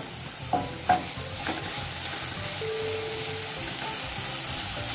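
Grated cabbage, carrot and green capsicum frying in a little oil in a nonstick wok with a steady sizzle, stirred with a wooden spatula.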